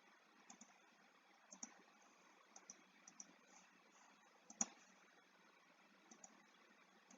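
Near silence broken by faint, scattered clicks of a computer mouse, with one slightly louder click about four and a half seconds in.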